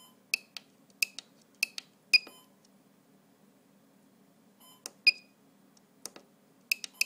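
Short sharp clicks of the menu push-buttons on a homebuilt FPV RSSI switch, many coming in quick press-and-release pairs, in a run of several in the first two seconds and again from about five seconds in, over a faint steady hum.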